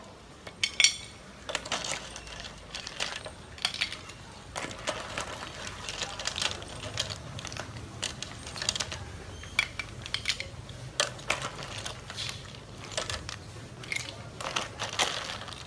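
Boiled snails in their shells being ladled out of an aluminium pot onto a ceramic plate with a plastic ladle: irregular clicks and clatters of shell against shell, ladle and plate.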